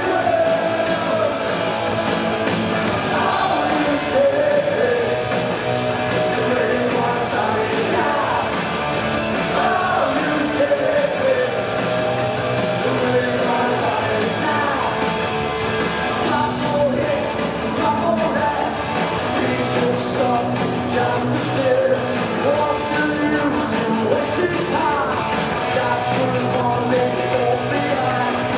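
Punk rock band playing live, electric guitar-driven, with a male singer yelling the vocal over it.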